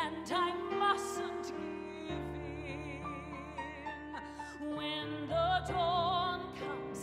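A woman singing a slow musical-theatre ballad live into a studio microphone, long held notes with a clear vibrato, accompanied by an electric keyboard playing sustained chords that change twice.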